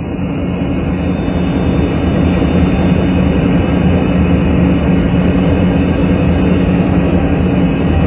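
Steady drone of a B-29 bomber's four piston engines in flight: a low, even hum over a rushing noise, growing a little louder over the first two seconds.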